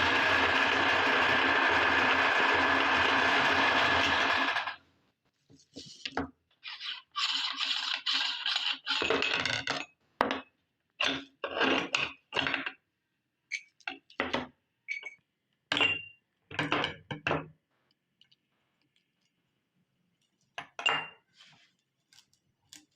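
Meat grinder motor running steadily, then cutting off suddenly after about four and a half seconds. After it come irregular short clinks and rattles of small hard objects, some with a brief metallic ring.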